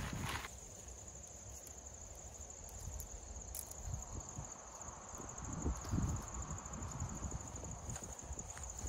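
Insects keep up a steady, high, pulsing trill, with low rustling and a few soft knocks from tent fabric and gear being handled, loudest about six seconds in.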